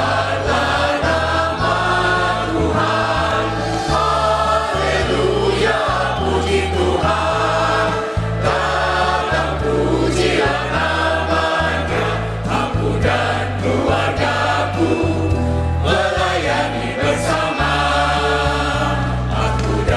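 Mixed choir of adults and children singing a hymn in Mandarin with instrumental accompaniment and a bass line under the voices.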